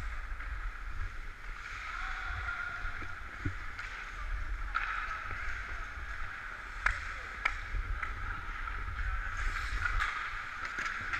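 Ice-hockey skate blades scraping and swishing over the rink ice in repeated strokes, with a constant rumble of air moving past the skater-worn camera's microphone. A few sharp clacks stand out about five and seven seconds in.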